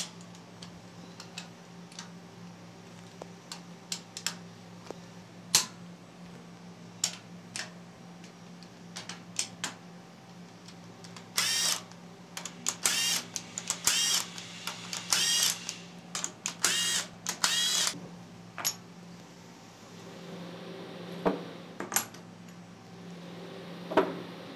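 Clicks and clanks of steel tools and vise jaws being handled, then a cordless drill-driver spinning in about half a dozen short whining bursts as it runs the bolts of a milling vise's jaw plates in or out. A steady low hum lies underneath.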